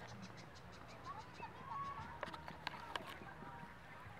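Faint outdoor ambience with scattered short bird chirps and a few sharp clicks a little over two seconds in.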